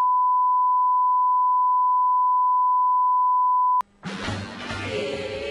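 Steady 1 kHz television line-up test tone played over colour bars, cutting off abruptly just under four seconds in. After a brief gap, music starts.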